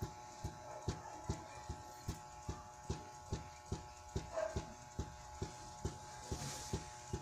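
Regular light knocking, about two to three knocks a second, over a faint steady hum.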